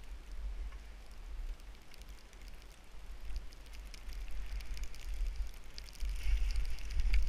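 Skis sliding through deep powder snow, with a low rumble of wind on the camera microphone and light crackling that grows louder in the last second or so as the skier picks up speed.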